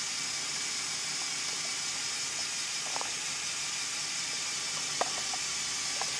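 LEGO Technic Mobile Crane 42009's Power Functions motor running steadily, driving the winch to lower the hook cable: a steady whirring hiss with a couple of faint clicks from the gearing.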